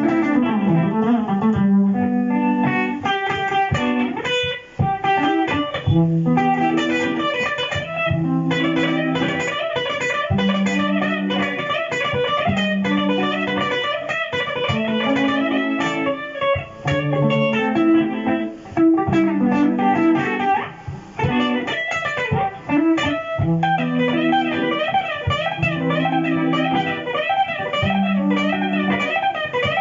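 Electric guitar playing jazzy lines over a looped guitar backing part that repeats a low figure, run through a Boss GT-100 multi-effects unit.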